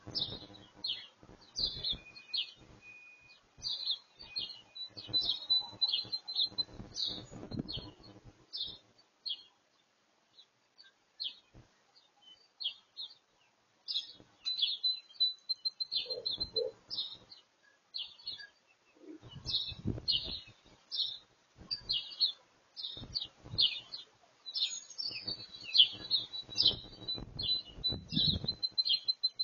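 Songbirds chirping over and over in short high chirps, with a few rapid trills. A low rumble comes and goes several times underneath.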